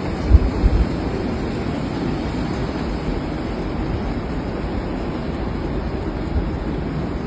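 Wind in a snowstorm, a steady rushing noise with low buffeting on the microphone in brief gusts about half a second in.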